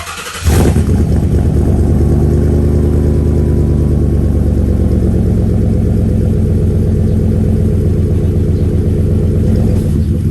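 Mercury Grand Marquis V8 engine catching about half a second in, then idling steadily with a low, even rumble.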